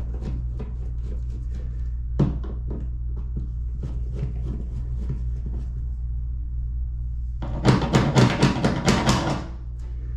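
Small clicks and knocks of a screwdriver and screws being worked on a light switch's wall plate, then a rapid run of about ten sharp clicks near the end, over a steady low hum.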